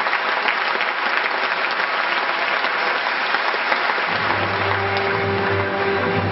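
Audience applauding over performance music. About four seconds in, the music's low bass notes come in.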